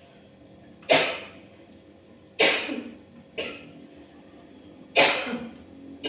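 A woman coughing: four separate loud coughs about a second to a second and a half apart, the third weaker than the others.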